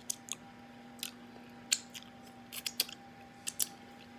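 Wet mouth smacks while chewing fufu and egusi soup: about nine short, sharp, irregular smacks. A faint steady hum runs underneath.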